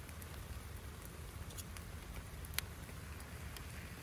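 Campfire crackling under a grill, with scattered sharp pops and one louder pop about two and a half seconds in.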